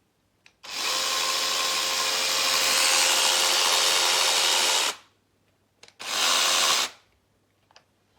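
Cordless brushless 6-inch mini chainsaw running: a steady high whine for about four seconds, then a second short burst about a second later, with small clicks around the bursts.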